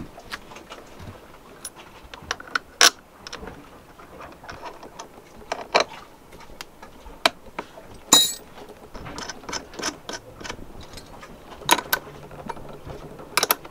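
Scattered metallic clicks and taps of hand tools working on a starter battery as it is fitted: a webbing strap is tightened around it and its terminal clamps are fastened with pliers and a spanner. A short hiss comes about eight seconds in.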